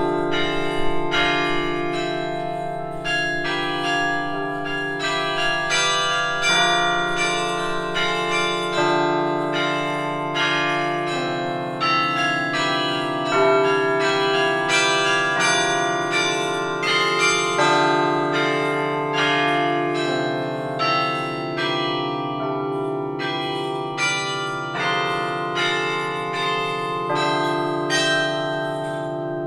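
Carillon bells played from the baton keyboard: a melody of quick struck notes, each ringing on and overlapping the next, over deeper bass bells that sound on long underneath.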